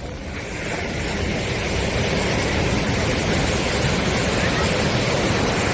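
Sea surf washing onto a sandy beach, a steady rush of breaking waves that swells in the first second or two and then holds.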